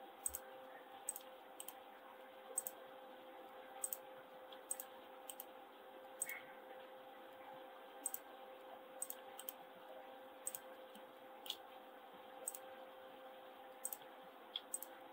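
Computer mouse and keyboard clicks, short and irregular, about one or two a second, over a faint steady electrical hum.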